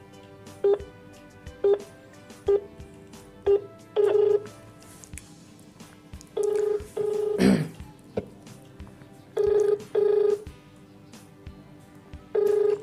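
Mobile phone placing an outgoing call heard on speaker: a few short beeps about once a second, then the ringback tone, a low double ring repeating every three seconds while the call waits to be answered.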